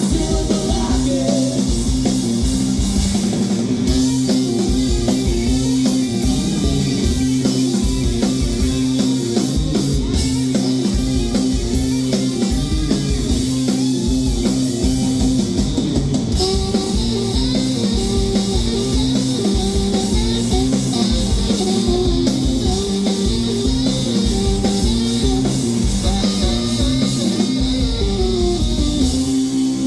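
A rock band playing live: guitars over a drum kit, loud and steady.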